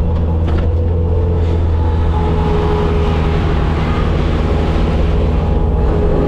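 Bobcat skid steer's diesel engine running steadily, a continuous low drone.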